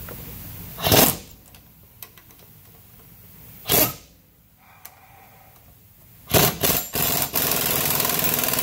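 Chicago Pneumatic air impact wrench working on driveshaft bolts in short bursts. There are two brief bursts, a few quick blips about six seconds in, then a longer steady run of hammering near the end.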